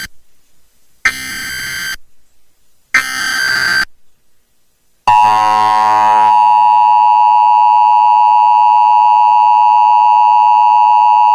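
Emergency Alert System SAME header: short bursts of screeching data tones, the last two starting about one and three seconds in. About five seconds in, the steady two-tone EAS attention signal (853 and 960 Hz) begins, marking the start of an alert relayed over a broadcast station.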